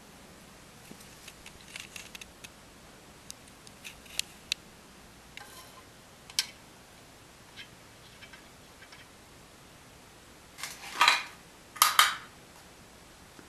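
Small clicks and light metallic clinks of small parts being handled, with two louder rattling bursts about eleven and twelve seconds in.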